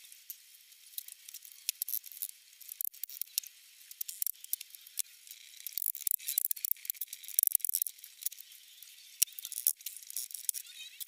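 Irregular sharp taps and clicks of a small hammer striking old wooden boards and nails, then pincers gripping and working nails out. The sound is thin, with no low end.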